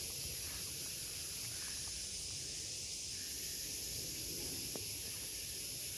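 Steady high hiss of outdoor background noise, with a couple of faint clicks.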